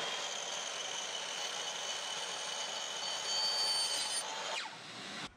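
Makita sliding miter saw with an 8-inch metal-cutting blade cutting through aluminum extrusion: a steady hiss of the blade in the metal with a high-pitched whine over it, easing off about four and a half seconds in and then cutting off.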